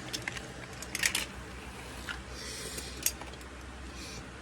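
Low steady rumble inside a moving car's cabin, with a few sharp clicks about a second in and again around three seconds in.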